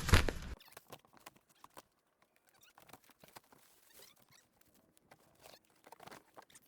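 A sharp knock right at the start, then faint, scattered light clicks and rustles of small handling noises.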